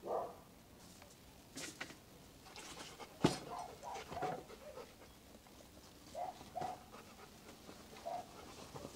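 Whole spit-roasted lamb being carved: short crunches and wet tearing as the knife cuts through crisp skin and meat, with one sharp knock of the blade about three seconds in.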